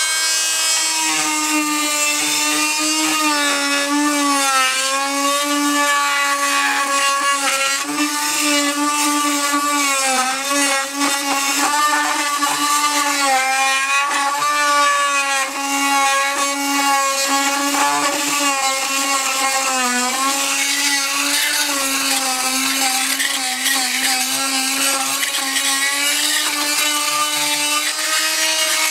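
Chicago Electric oscillating multi-tool with a carbide tile and masonry blade running continuously as it works at the mortar under an old floor tile. It gives a steady high buzz whose pitch dips and wavers as the blade is pressed in and loaded.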